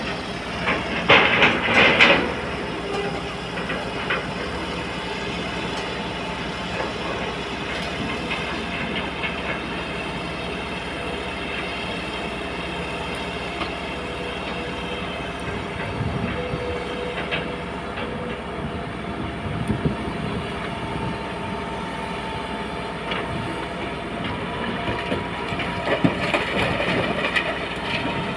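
Heavy earthmoving machine's diesel engine running steadily, with loud metallic clanks about a second in and again near the end.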